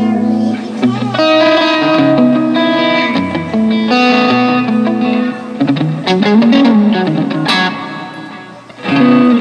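Squier Vintage Modified Stratocaster electric guitar played through a Zoom G3X multi-effects processor, picked up by a phone's microphone. Held notes and chords ring out, with a note bent up and back about two-thirds of the way in. The sound fades away, and a fresh chord is struck just before the end.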